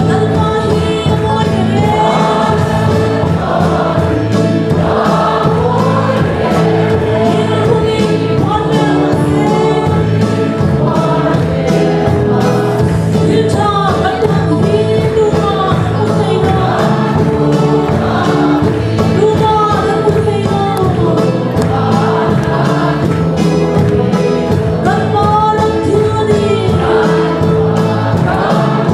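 A congregation of men's and women's voices singing a hymn together in unison, with a steady beat underneath.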